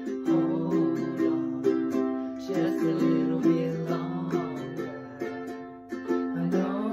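Ukulele strummed in a steady rhythm, with a woman and a man singing along together.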